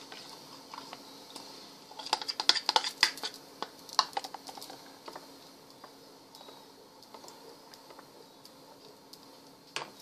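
Kitchen utensils clicking and tapping against a saucepan and a small plastic tub while cornstarch slurry is added and stirred into a sauce. A dense run of quick clicks starts about two seconds in and lasts a couple of seconds, then light taps come only now and then. A faint steady hum runs underneath.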